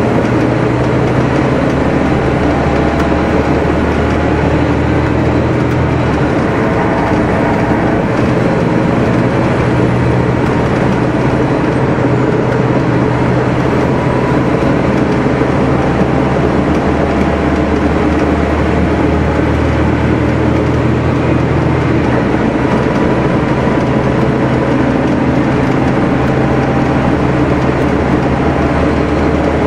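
Gillig Phantom transit bus with a Cummins ISL six-cylinder diesel, idling steadily while parked, with a deep low engine note.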